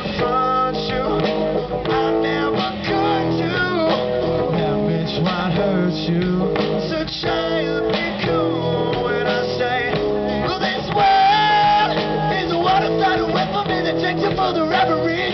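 Rock band playing live, guitar to the fore over a steady beat, with some singing.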